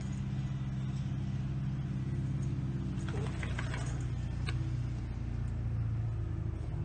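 Steady low engine hum running at an even pitch, with a few faint light clicks about three to four seconds in.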